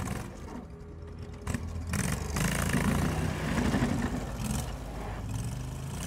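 Off-road ATV engine running under load as the machine crawls through brush, its revs rising about two seconds in and easing off toward the end, with a couple of short knocks near the start.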